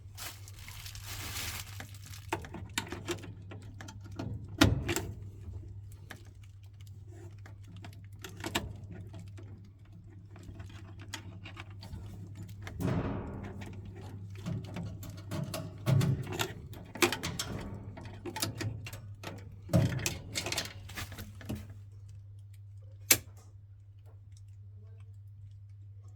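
Scattered clicks, knocks and light clatter of tools and parts being handled, over a steady low hum, with one sharp click near the end.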